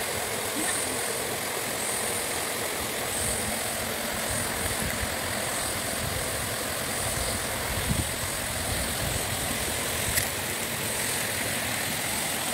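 Steady rush of flowing stream water, with a high hiss that swells and fades over it and a single sharp click about ten seconds in.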